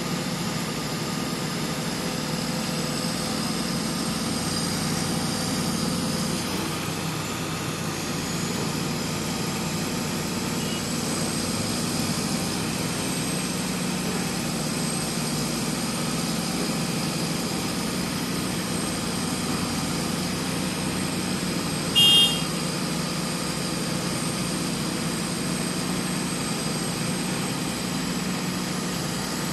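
Zoomlion ZR185 rotary piling rig's diesel engine running steadily. A brief, sharp high-pitched sound cuts in once, about three-quarters of the way through.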